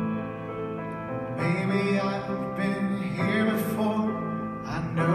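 Upright piano playing slow sustained chords, with a man's voice singing over it from about a second and a half in.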